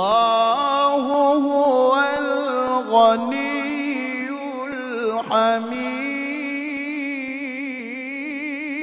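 A male qari reciting the Quran in the melodic tilawah style, drawing out one long melismatic phrase with sliding ornaments, which turns into a steady wavering vibrato in the second half.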